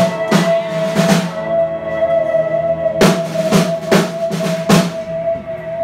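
A live band's drum kit played in two clusters of loud crashing hits, the first in the opening second and the second from about three to five seconds in, with a pause between. A steady held tone from the amplified instruments rings underneath throughout.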